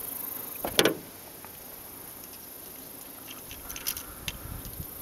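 Handling noise from a landed largemouth bass and its topwater lure in a boat: a sharp knock about a second in, then a few light clicks and rattles a little before the end.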